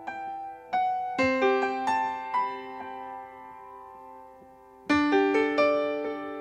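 Background music: a solo piano playing a slow phrase of single notes and chords that ring and fade, with a fresh group of notes just before five seconds in.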